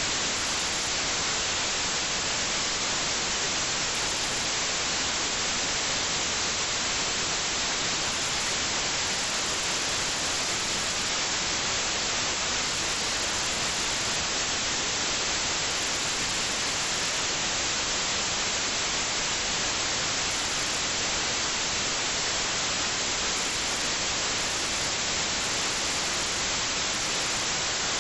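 Steady static hiss from the recording, an even noise with no change in level throughout; no engine or water sound stands out above it.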